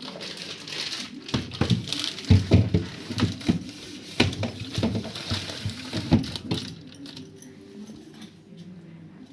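Plastic fridge storage boxes and plastic covers being handled: rustling and a quick run of knocks and clicks, busiest in the first two-thirds, then quieter handling.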